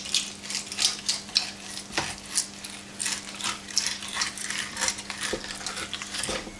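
Filleting knife cutting and scraping along a red cod fillet on a wooden cutting board: a quick, irregular run of short scraping strokes. A steady low hum runs underneath.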